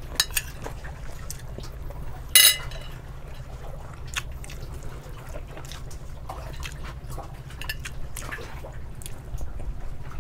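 Wet chewing and lip-smacking of a mouthful of kimchi and rice, with small clicks scattered throughout and one short, sharper crackle about two and a half seconds in. A steady low hum runs underneath.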